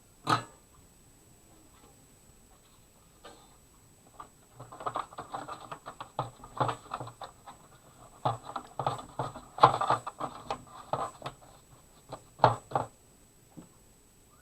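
Irregular clicks and taps of handling: one sharp click at the start, then a busy stretch of quick, uneven tapping and clattering through the middle, ending with a couple of sharper clicks.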